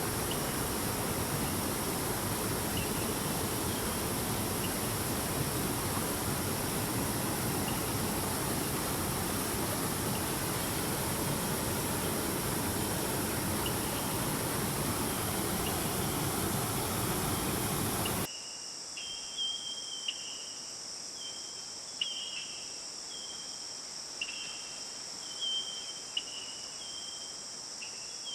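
Steady rush of flowing river water, with faint short chirps over it. About eighteen seconds in it cuts abruptly to quieter forest ambience: a steady high insect drone with repeated short chirps.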